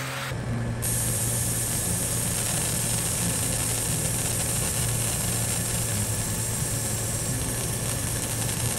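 Monport 30W fiber laser engraving a brass coin: a steady low hum with an even hiss that sets in about a second in.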